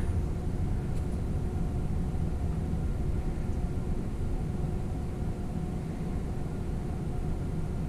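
Steady low rumble with a faint steady hum running under it: room background noise, with no distinct handling sounds.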